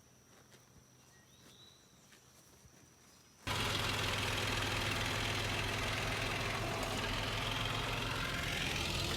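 Faint outdoor quiet with a few small ticks, then about three and a half seconds in a vehicle engine cuts in suddenly and loud, running steadily.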